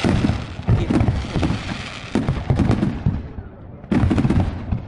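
Fireworks display: a dense run of overlapping booms and crackling bursts. It thins out about three seconds in, then picks up with a fresh volley about four seconds in.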